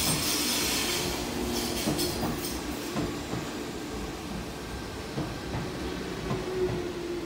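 Nishitetsu 5000 series electric train pulling in alongside the platform: steady rolling noise with a low whine, and wheels clacking over rail joints about once a second, getting quieter as the train slows to a stop.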